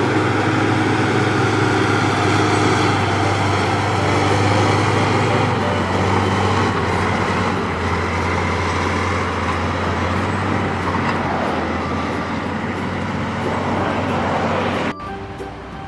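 A motor vehicle's engine running steadily, a low hum under dense noise, which cuts off abruptly about a second before the end; music with held notes follows.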